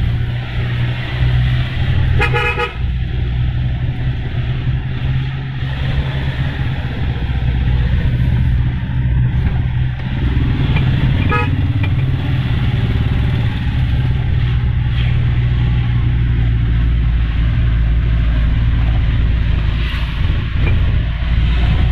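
Mahindra Scorpio's turbocharged engine pulling steadily in second gear up a steep climb, heard from inside the cabin. A horn toots briefly twice, about two seconds in and again about eleven seconds in.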